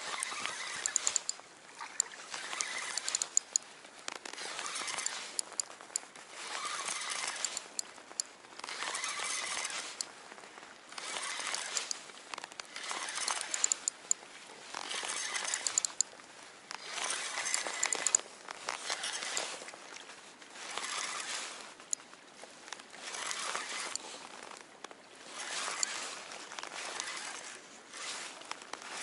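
Spinning reel cranked in short spells of about a second and a half with brief pauses, roughly one every two seconds: the stepped retrieve of a jig lure.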